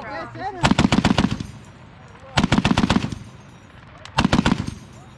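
M2 .50-calibre heavy machine gun firing three short bursts of rapid shots, each under a second long, with a pause of about a second between them.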